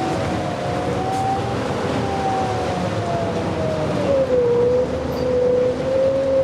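Cabin sound of a 2009 New Flyer D60LFR articulated diesel bus under way. A drivetrain whine falls in pitch about four seconds in and then holds steady, over a constant rushing noise.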